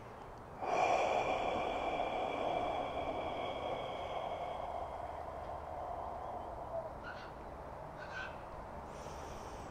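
A man's long, steady breath out through the mouth, starting about half a second in and fading away over about six seconds, pushing all the air out of his lungs in a breathing exercise. Two faint brief sounds follow near the end.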